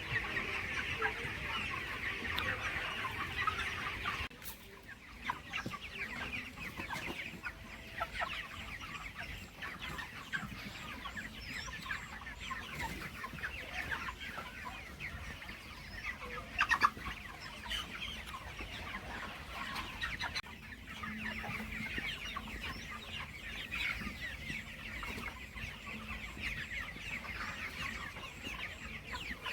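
A flock of farm chickens clucking and cheeping continuously, with many birds calling over one another. Partway through, one sharp knock stands out above them.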